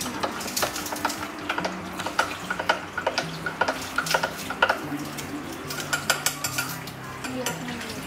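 A spoon stirring a milky drink in a tall glass, clinking against the glass again and again in quick, uneven strokes.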